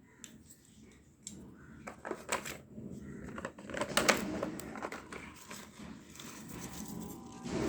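Slime being worked by hand close to the microphone: irregular sticky clicks and crackles that grow busier about a second in, with a couple of louder snaps.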